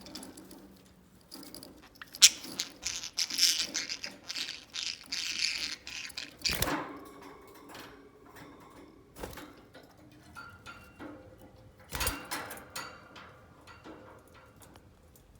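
Pet budgie moving about its cage: irregular clicks, taps and scratchy rattling of beak and feet on the cage fittings, busiest for the first several seconds, then scattered single clicks.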